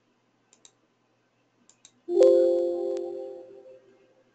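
A few soft keyboard clicks, then a single electronic computer alert chime about two seconds in that fades away over about two seconds.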